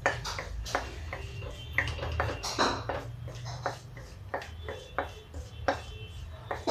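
A wooden spoon knocks and scrapes around an aluminium kadhai, stirring a bay leaf and dried red chillies in hot mustard oil. It makes irregular taps and clicks, several a second.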